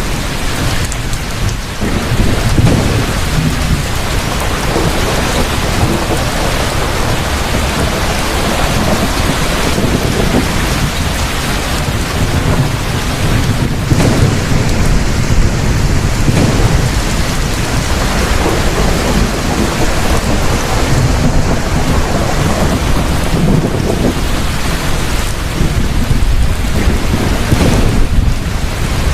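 Heavy rain falling steadily, with low thunder rumbling throughout and a brief sharper crack about halfway through.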